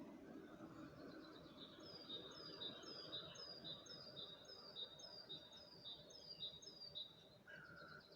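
A small songbird singing faintly, repeating one short high two-note phrase about twice a second for several seconds. Near the end another, lower bird note is heard.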